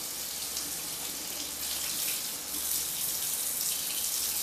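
Kitchen sink faucet running a steady stream of cold water over a freshly cut hand, rinsing the cut.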